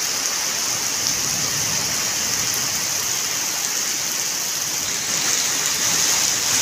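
Heavy rain falling steadily and splashing on a wet, puddled ground.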